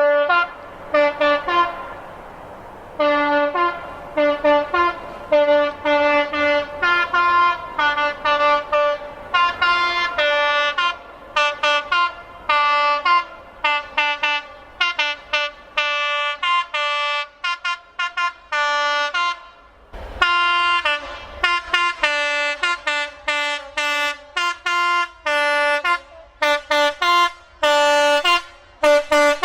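Train horns sounding a long run of short blasts, several a second, switching back and forth between a high note and a low note like a tune. About twenty seconds in, a brighter-sounding horn takes over with the same quick high-low pattern.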